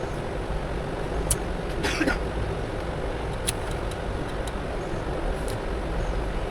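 Steady background hum and hiss, with a few faint small clicks and a brief scrape about two seconds in.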